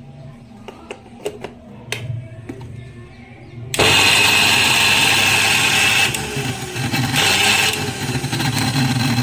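A few small clicks and knocks, then, about four seconds in, a Prestige mixer grinder's motor is switched on and runs with a loud, harsh, steady noise.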